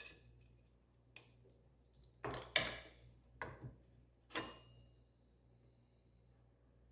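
Metal tool clinking and scraping on an ATV's front brake caliper as the brake pads are pried apart to get the caliper off: a handful of separate knocks, the last one ringing briefly.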